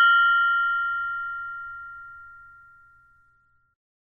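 Meditation bell ringing out after a strike, several tones fading evenly, the higher ones first. It dies away about three seconds in, leaving silence.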